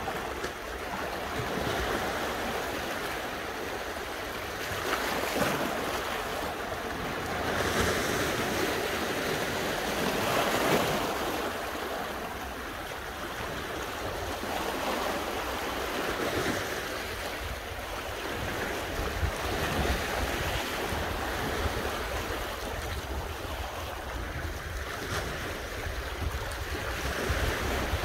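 Sea waves washing against a rocky shore, swelling and falling back every few seconds, with wind buffeting the microphone as a low rumble.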